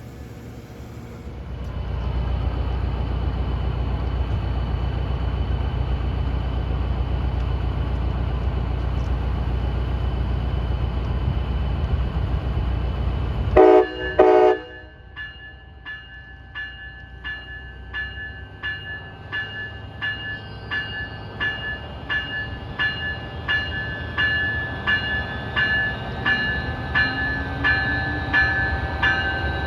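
A train passing with a loud, steady low rumble, cut off abruptly about halfway by a short, loud blast of its horn. After that a bell rings steadily, about two strokes a second.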